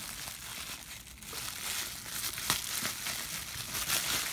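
Plastic bubble wrap crinkling and rustling in the hands as it is unwrapped, with many small crackles; it gets louder about a second and a half in.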